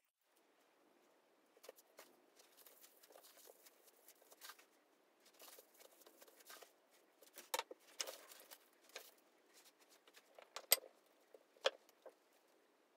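Faint handling sounds of rolling sushi by hand: a bamboo rolling mat rustling and clicking, with small taps on the counter. A few sharper clicks come in the second half.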